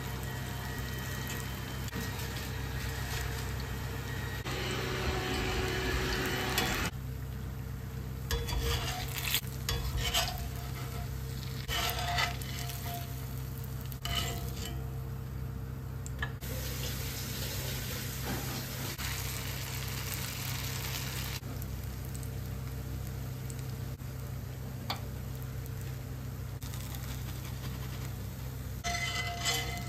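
Food deep-frying in oil in a cast-iron skillet, sizzling, heaviest for the first several seconds and then thinner as the pan empties. A wire spider strainer scrapes and clinks against the pan now and then as the fried pieces are scooped out, with a few clinks close together near the end.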